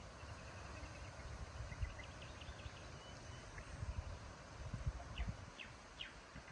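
Wind gusting over the microphone in uneven low rumbles, with a few short high bird chirps.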